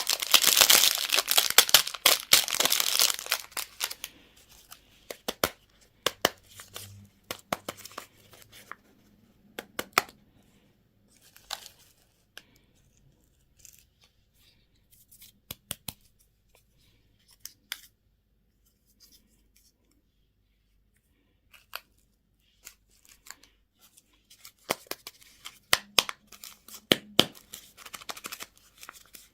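Candy packaging being torn open, a dense burst of tearing and crinkling, followed by scattered light clicks and taps as the wrappers are handled. After a quiet stretch, more crinkling comes near the end.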